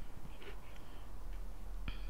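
Faint clicks and scrapes of a plastic fork in a plastic takeout bowl, with one sharper click near the end, over a low steady hum.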